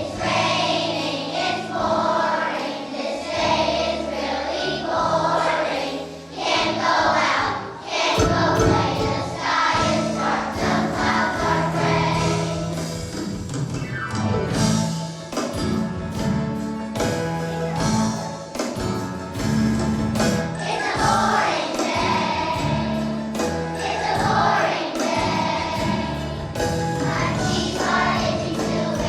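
A choir of young second-grade children singing a song together over instrumental accompaniment.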